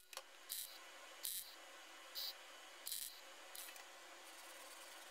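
R-Tech MIG welder stitching a patch into thin sheet-steel floor pan: six short bursts of arc noise, each a fraction of a second and spaced under a second apart, as tack welds are laid one after another. A faint steady hiss follows near the end.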